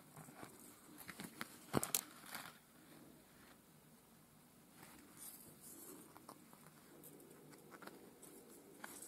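Faint rustling and small clicks of fingers handling a piece of stiff felt while seed beads are hand-sewn onto it one at a time, the sharpest clicks about two seconds in.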